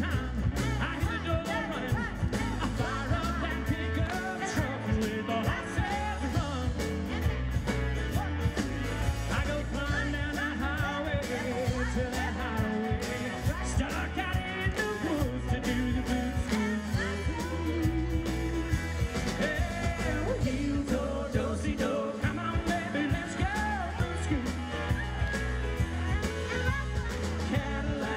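Live rock band playing with a lead singer, guitars, keyboards and drums over a steady beat.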